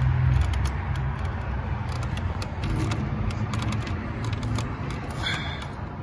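Light clicks and rattles of the ignition coil's plastic electrical connector being handled and pushed back on, over a steady low rumble, with a short squeak about five seconds in.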